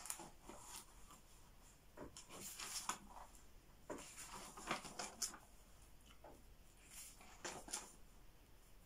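Quiet, intermittent rustling and light handling noises: a few soft scrapes and small clicks spread over several seconds, as of objects being handled at a table.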